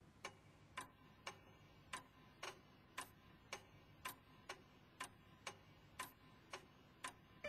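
Faint steady ticking, about two ticks a second, over a faint low hum.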